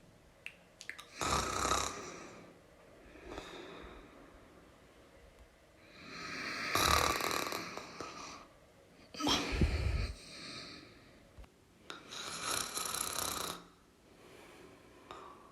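A person snoring, with four loud snores a few seconds apart and a fainter one between the first two. The snore about ten seconds in is deeper and rougher than the others.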